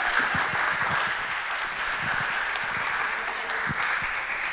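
Audience applauding, slowly fading.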